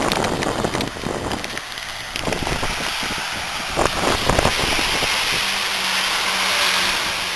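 A car going by on a snowy, slushy road, its tyres hissing steadily through the slush, with a few knocks around the middle and a low engine hum in the second half.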